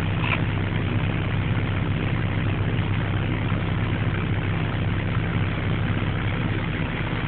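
Heavy construction machine's engine running steadily, a low even drone with no change in speed.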